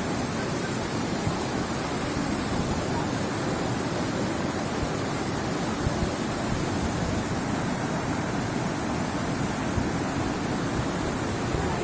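Fast-flowing stream water gushing over rocks: a steady, unbroken rushing sound.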